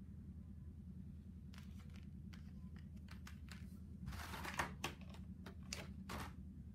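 Clear plastic blister trays from a figure's packaging being handled: scattered light plastic clicks and taps, with a short crinkling rustle about four seconds in, over a faint low hum.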